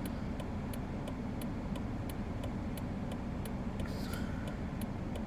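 A car's indicator flasher ticking steadily at an even pace, over the low hum of the engine idling, heard inside the cabin.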